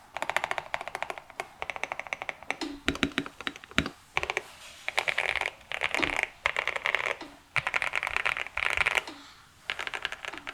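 Liumang 84 custom mechanical keyboard with lubed Jixian Milky Purple tactile switches, PBT keycaps and tape and PE foam mods, typed on quickly. Runs of rapid keystrokes come in short bursts with brief pauses between.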